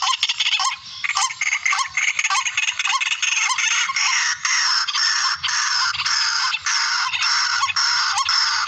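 Recorded barred rail (tikling) calls played back as a hunting lure: a dense, harsh chorus of rapid repeated notes with sharp clicks about twice a second. A low hum joins about five seconds in.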